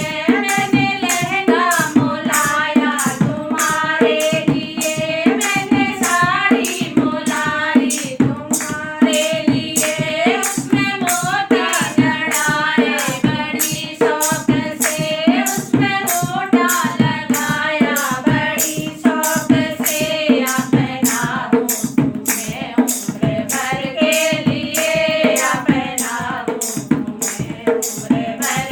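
Singing of a Hindi banna-banni wedding folk song, the melody carried by voice over a drum beating a steady, even rhythm.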